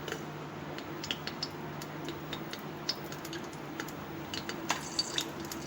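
Faint scattered clicks and light metallic ticks as cumin seeds go into hot oil in a pressure cooker, with more of them near the end.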